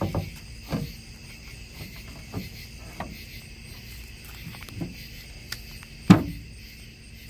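Insects chirping steadily, with scattered knocks and clacks as the tailgate's inner cover panel is set back in place; the loudest knock comes about six seconds in.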